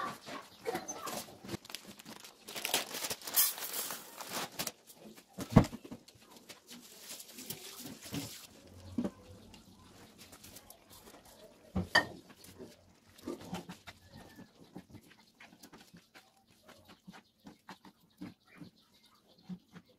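Kitchen handling sounds: a metal spoon clinking and scraping in a frying pan as a rice and tomato filling is mixed, with scattered knocks of dishes. A hiss runs through the first third, and there are two sharper knocks, one about a quarter of the way in and one around the middle.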